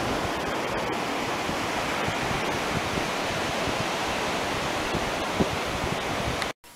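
Steady rush of sea waves and wind on open water, with uneven low gusts of wind on the microphone. It cuts off abruptly near the end.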